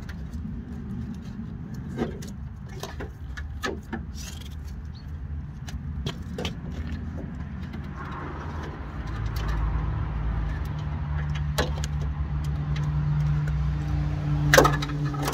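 Plastic clips, connectors and a wiring loom clicking and rattling as the loom is unplugged and pulled out of a van's door, with one louder knock near the end. A steady low drone grows in from about nine seconds in.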